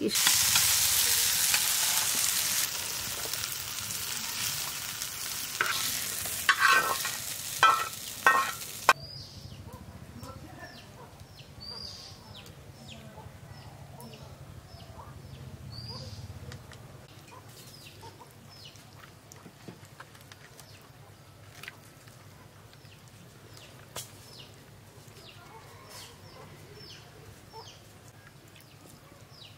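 Food sizzling in hot oil, with a few metal clanks of stirring in the pan, stops abruptly about nine seconds in. After that, birds chirp in short high calls over a faint low hum.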